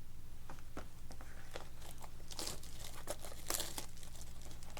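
Plastic wrapping crinkling and being torn with small clicks and rustles as a sealed trading card box and pack are opened.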